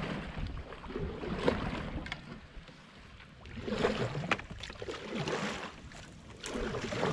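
Canoe paddle strokes in calm river water: the blade dips and pulls with splashing and dripping, about five strokes a second or two apart, switched from one side of the canoe to the other.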